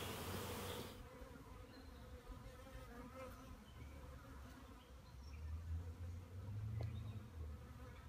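Honeybees from an open top-bar hive buzzing faintly, the hum growing a little louder in the last few seconds.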